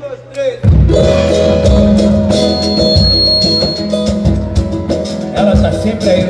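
Music: a few quiet gliding notes, then a full band with drums and bass comes in loudly a little under a second in and plays on.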